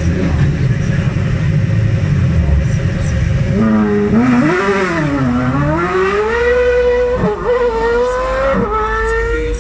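Zytek V8 race engine in a Ferrari F355 GT running steadily and low at the start line. About three and a half seconds in, the car launches and accelerates hard away, the engine note climbing and dropping back with each of several quick upshifts.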